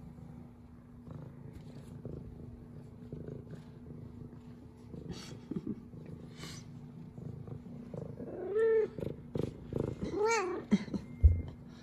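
F2 Savannah cat purring steadily, with two short meows late on, each rising then falling in pitch. A brief low thump follows the second meow.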